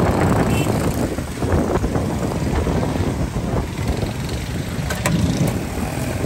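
Steady low rumble of a busy street-food cooking stall, with two light clicks about five seconds in.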